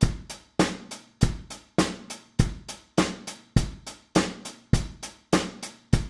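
Basic rock beat played on a Pearl Roadshow drum kit: closed hi-hat tapped in steady eighth notes, bass drum on beats 1 and 3 and snare drum on 2 and 4.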